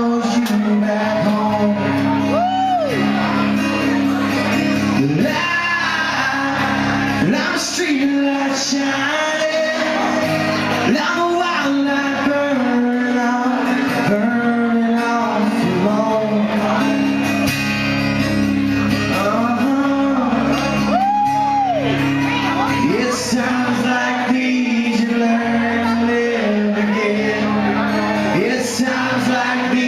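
Live music, loud and continuous: a man singing with instruments playing under him, in a reverberant hall.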